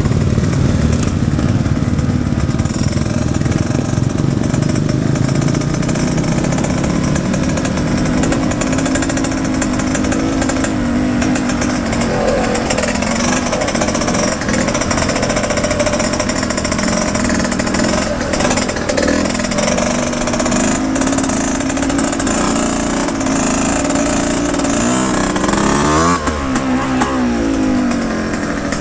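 Yamaha YZ125X two-stroke motocross engine running hard under racing load, the revs rising and falling with throttle and gear changes. Near the end the revs fall away and waver as the bike slows.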